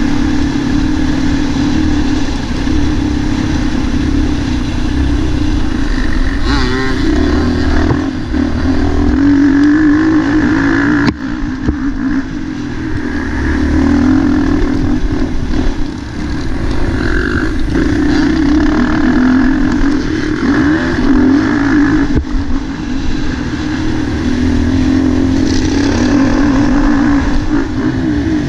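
MX1-class motocross bike engine heard from on board, revving up and down as it is ridden hard round a dirt track. A sharp knock about eleven seconds in is followed by a brief drop in the engine sound.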